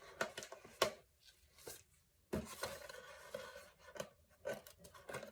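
Fishing baits in plastic packaging being handled: scattered rustles and light clicks, with a quiet pause about a second in.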